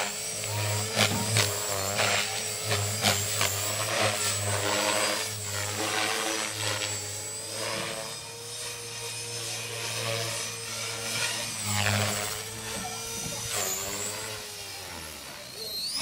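450-size electric RC helicopter in flight: a high motor and gear whine over the steady low thrum of the main rotor, with frequent short clicks. Near the end the whine dips in pitch and then climbs back up.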